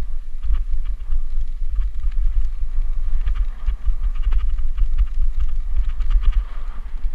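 Wind buffeting the camera microphone as a mountain bike rides fast downhill over rough grass, a heavy low rumble. The bike rattles and clicks over the bumps, more densely in the second half.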